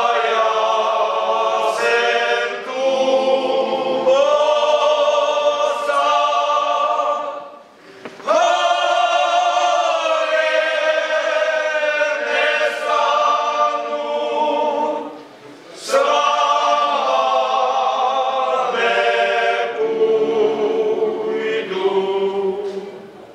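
Men's folk choir singing a Moravian folk song a cappella in several-part harmony, in long held phrases with two short breaks for breath, about 8 and 15 seconds in.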